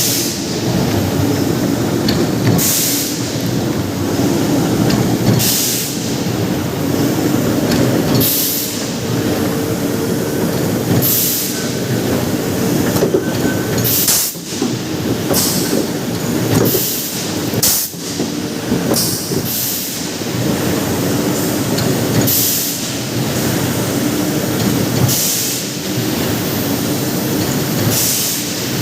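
Combined bar drawing machine working 32 mm bar: a loud, steady industrial running noise with a low hum and steady tones, broken every two to three seconds by short hissing bursts.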